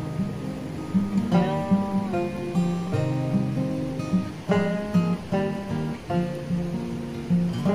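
Background music: acoustic guitar picking and strumming chords in a steady rhythm.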